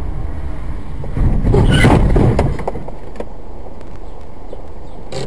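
Dash-cam recording from a moving car: steady low road and engine rumble. A louder, harsh rush of noise comes about a second in and dies away over the next second and a half. A few sharp clicks follow.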